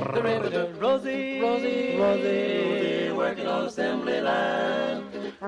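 Background music: a 1940s male vocal group singing sustained notes in close harmony, without words.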